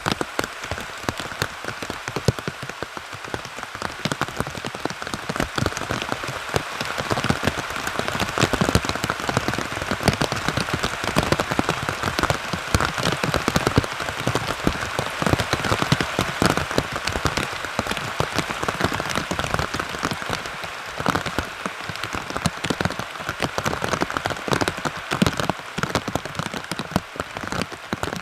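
Heavy rain falling steadily, a dense hiss crowded with close, sharp drop impacts, growing a little heavier after several seconds.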